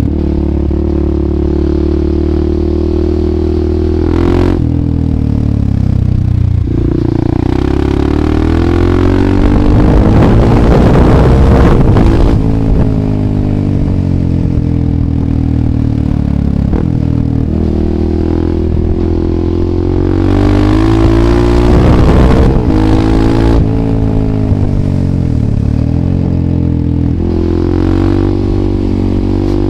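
Husqvarna 630 supermoto's single-cylinder four-stroke engine through an FF by Fresco slip-on exhaust with no dB killer, ridden on the road. It pulls hard through the gears twice, with the pitch climbing and breaking at each shift, and rolls on and off the throttle through the bends in between.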